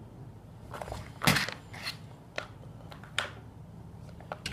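Plastic snack packet crinkling as it is handled, in a few sharp crackles, the loudest about a second in.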